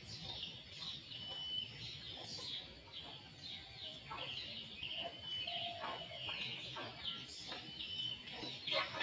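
Small birds chirping and twittering throughout, with short high whistled notes repeated every second or so.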